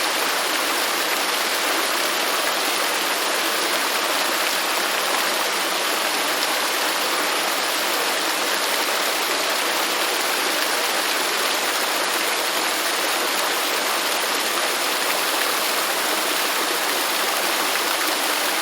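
Waterfall: water falling and splashing in a steady, even rush with no change in level.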